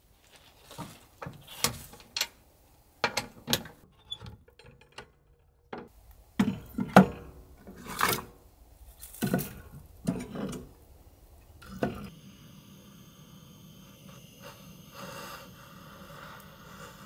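Firewood being handled and laid into a small steel wood-burning stove: a run of separate wooden knocks and clatters, the loudest about seven seconds in. From about twelve seconds it turns quieter and steadier.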